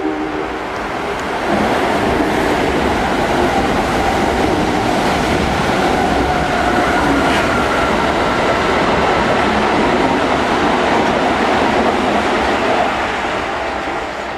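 Kintetsu commuter electric train running through the station: a steady rumble of steel wheels on rail with clickety-clack over the joints. It swells up about a second and a half in, holds, then eases off near the end.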